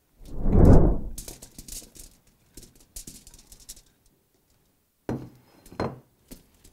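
Seasoned sliced red potatoes tipped out of a bowl onto aluminium foil: a loud dull rush as the load slides out near the start, then crinkling foil and the rustle of slices being spread by hand, with two short knocks near the end.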